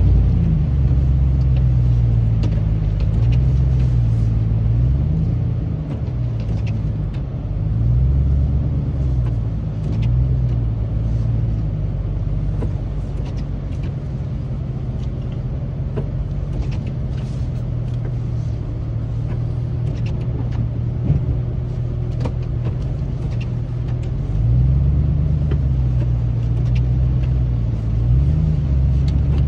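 A 2008 Chevrolet Silverado 2500HD's 6.0-litre gas V8 running as heard inside the cab while the truck plows snow, its pitch rising and falling in the first few seconds and again near the end, steadier in between.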